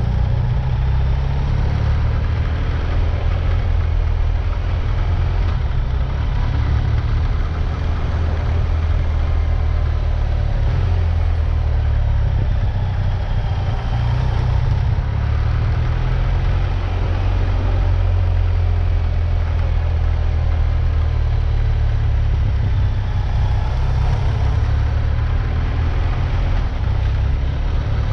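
A vehicle driving with its engine running steadily, under a heavy low rumble, with no clear change in pace.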